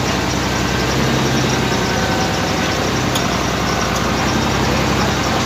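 Vehicle engine running steadily, a continuous low hum with road noise over it.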